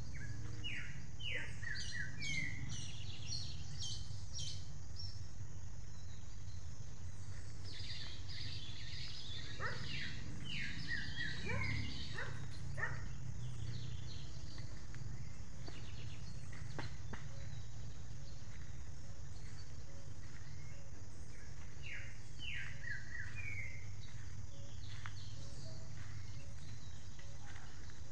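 Wild birds chirping in quick series of high notes, in three bouts: about a second in, around eight to thirteen seconds in, and again about twenty-two seconds in. Under them runs a steady low rumble.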